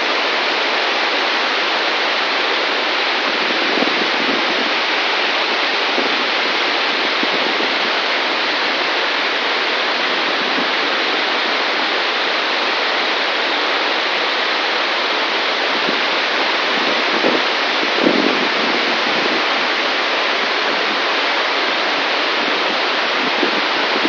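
Steady rush of a waterfall and the rocky stream below it, with a few brief low bumps.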